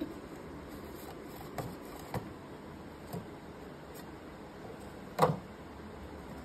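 Clear plastic box knocking and scraping on a marble floor as a kitten noses into it and pushes it about: a few light knocks, then one louder knock about five seconds in.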